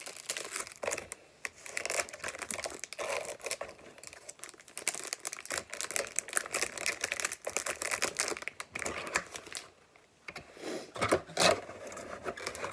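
Plastic packaging of a nail polish kit crinkling and rustling as it is unwrapped by hand, with rapid small clicks and taps throughout and a couple of louder knocks about eleven seconds in.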